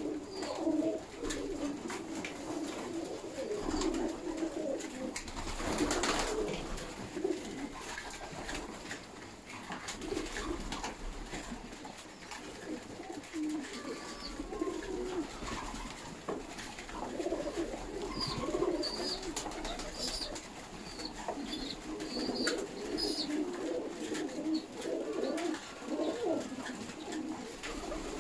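A flock of Baku fighting pigeons cooing continuously, many overlapping low warbling coos, with scattered light clicks.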